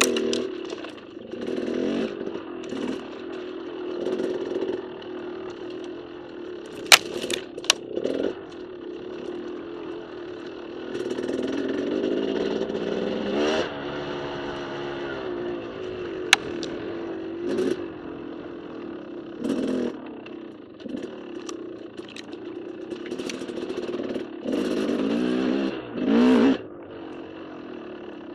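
KTM dirt bike engine running under changing throttle, its pitch rising and falling as it revs up and drops back. A few sharp knocks cut through it, two about seven seconds in and one a little past sixteen seconds.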